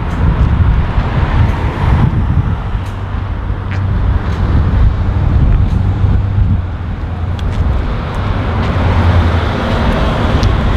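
Road traffic: a steady low rumble of vehicle engines and tyres, swelling and easing a little.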